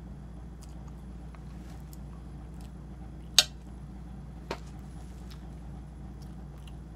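Metal fork clinking sharply once against a ceramic plate of ramen noodles about three and a half seconds in, with a softer click a second later, over faint chewing and slurping of noodles and a steady low hum.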